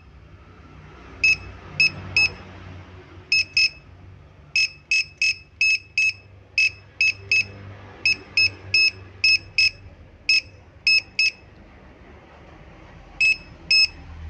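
Portable keyboard tester beeping once for each key pressed on a laptop keyboard: a quick, uneven run of short high beeps with a pause near the end. Each beep shows that the key works.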